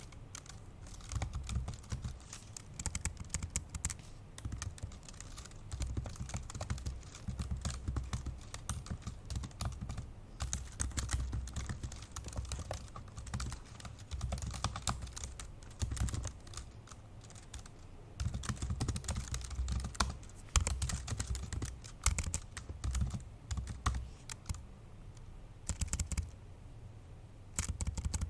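Fast, forceful typing on an old MacBook Pro laptop's built-in keyboard: dense runs of key clicks broken by a few short pauses.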